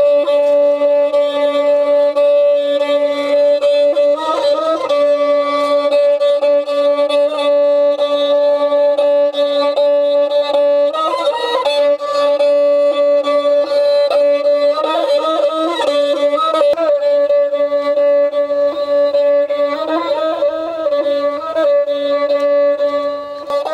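Santal banam, a carved wooden bowed folk fiddle with a skin-covered body, played with a bow. It holds one steady note and breaks into short, quick melodic runs about every four to five seconds.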